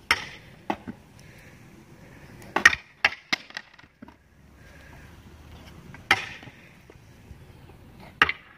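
Stunt scooter deck and wheels smacking and clattering on the concrete of a skatepark bowl: a sharp hit right at the start, a rapid cluster of clattering hits about two and a half to three and a half seconds in (the loudest), another hard hit about six seconds in, and one more near the end.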